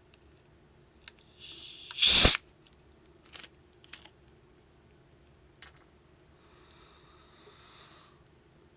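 Cap twisted off a 2-liter bottle of orange Fanta: a click, a short hiss of escaping carbonation, then a brief loud pssht as the seal breaks. A few light clicks of handling follow, and a faint hiss comes near the end.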